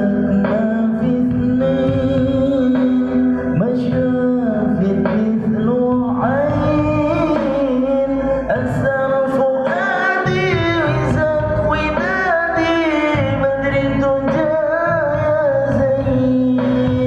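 Sholawat, an Islamic devotional song, sung by a male voice in long, ornamented phrases over a held low drone and instrumental accompaniment, played loud through an amplified sound system.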